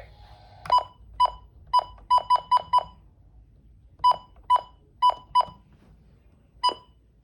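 About a dozen short electronic beeps, all at the same pitch, in an uneven rhythm: a quick run of seven, a pause of about a second, then four more and a last one near the end.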